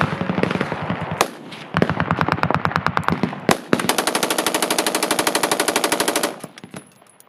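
Fully automatic machine-gun fire in several rapid bursts, with a few louder single shots mixed in. A long, very fast sustained burst starts about halfway through and cuts off about a second before the end.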